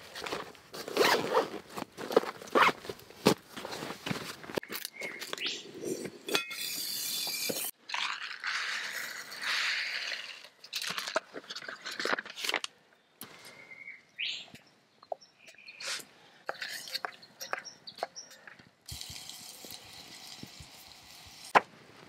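Hands-on camp cooking preparation: a run of scrapes, clicks and knocks from utensils, food and packets being handled. A bright hiss comes about seven seconds in, and the sound changes abruptly a couple of times.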